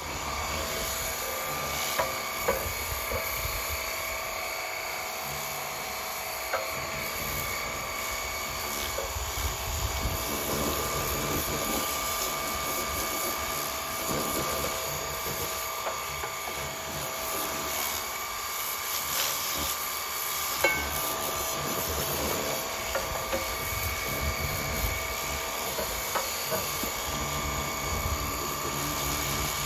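Battery-powered pressure washer running, its motor and pump giving a steady whine while the water jet hisses and spatters against the underside of a metal mower deck. A few short sharp knocks stand out, about two seconds in, near seven seconds and around twenty-one seconds.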